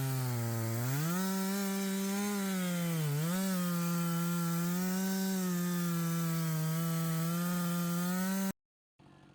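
Two-stroke chainsaw running under load as it rips a log lengthwise in an Alaskan chainsaw mill, its engine note steady with brief dips in pitch about half a second and three seconds in as the cut loads it. The sound cuts off abruptly near the end.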